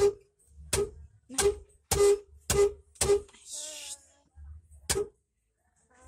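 Vehicle horn tapped in short beeps as a toddler presses the horn pad on the steering wheel: six quick toots about half a second apart, then one more near the end.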